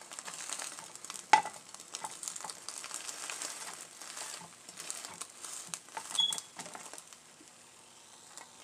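Folded egg omelet sizzling in a nonstick frying pan while a silicone spatula nudges and scrapes it against the pan, with a sharp tap about a second in. The sizzle dies down near the end.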